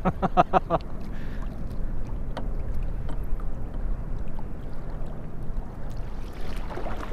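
Steady wind rumble on the microphone, with water lapping against a kayak hull and a faint tap or two from gear on the boat.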